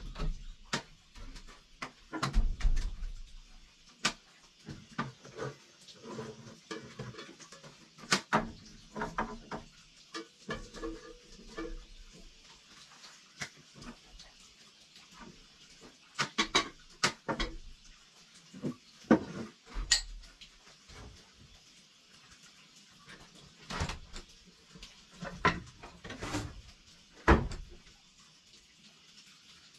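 Irregular knocks and clatter with quiet gaps between, the louder ones coming in small clusters near the middle and toward the end.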